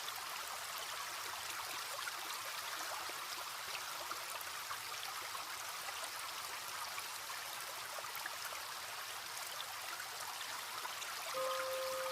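Water of a small stream trickling steadily. A few gentle music notes come in near the end.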